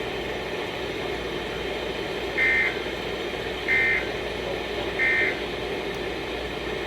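Emergency Alert System end-of-message data bursts: three short, identical, raspy two-tone digital chirps about 1.3 seconds apart, marking the end of the alert. A steady hiss runs underneath.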